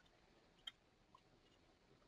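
Near silence: room tone, with one faint short click about two-thirds of a second in.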